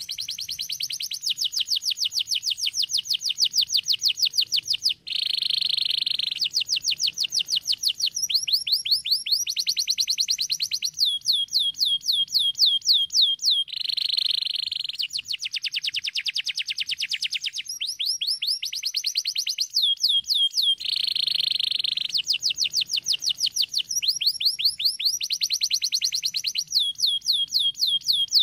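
Domestic canary singing continuously: a long song of fast trilled rolls, each a run of rapidly repeated high notes, switching to a new roll every second or two, with lower, denser buzzing phrases in between.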